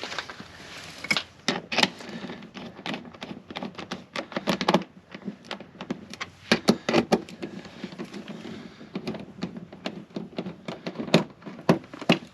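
Irregular clicks and light knocks of a hand tool and plastic parts as small machine screws are driven in to fasten a WeatherTech mudflap to the truck's plastic rock shield, some in quick clusters.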